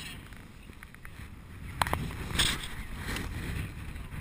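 Wind rushing over the microphone of a camera mounted on a paraglider's harness in flight: a steady low buffeting, with a sharp knock a little under two seconds in and a short rustle about half a second later.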